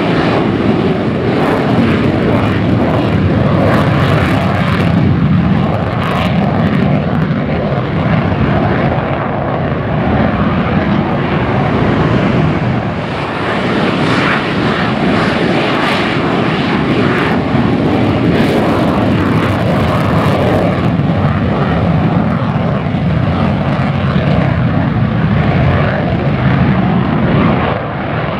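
F-16 fighter jets running at takeoff power as they roll down the runway one after another, with a loud, continuous jet engine noise. The noise dips briefly about halfway through and again just before the end, as one lifts off.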